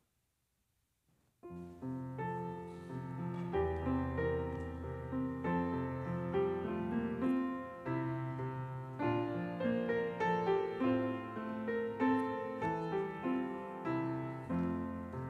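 Piano playing a slow instrumental introduction, chords over held bass notes, starting about a second and a half in.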